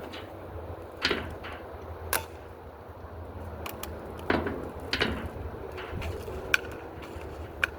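Remington Airmaster 77 pump-action BB air rifle being worked and fired: about six short, sharp clicks and knocks at uneven intervals.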